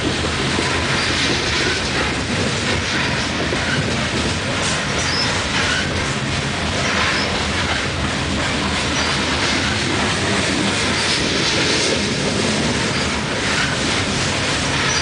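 Loaded coal hopper cars rolling past: a steady rumble of steel wheels on rail, with irregular clacks and several short, high-pitched wheel squeals.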